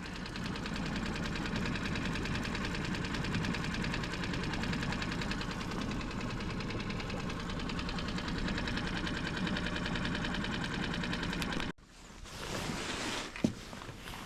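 Boat's outboard motor running steadily, moving the boat. It cuts off suddenly about twelve seconds in, leaving quieter open-air sound with a few light knocks.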